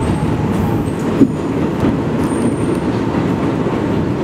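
NYC Subway 1 train (R62A cars) running along elevated track, heard from inside the car: a steady rumble of wheels on rails, with one sharp clack about a second in.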